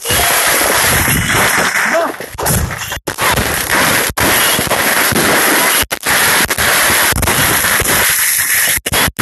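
Fireworks and firecrackers going off close by: a dense, continuous crackling and popping. The sound cuts out for an instant several times.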